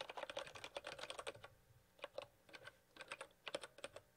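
Faint computer keyboard typing: a quick run of keystrokes for about a second and a half, a short pause, then scattered single keystrokes.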